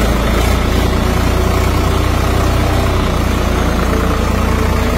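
Swaraj farm tractor's diesel engine running steadily at low revs, heard close up.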